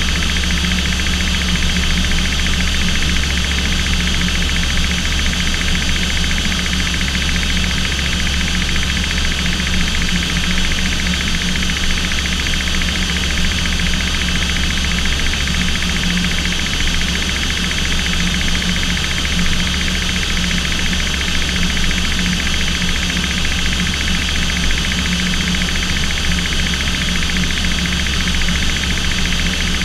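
Steady aircraft noise heard from inside the cockpit in flight: a constant low engine drone with a hum near 200 Hz and a layer of steady high whining tones above it, with no change in level.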